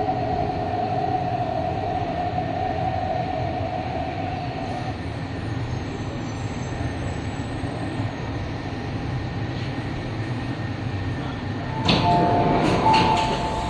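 MTR East Rail Line train heard from inside the carriage while running: a steady rumble of wheels and body with a steady motor whine that fades out about a third of the way in. Near the end a short two-tone electronic chime sounds, with a few clicks.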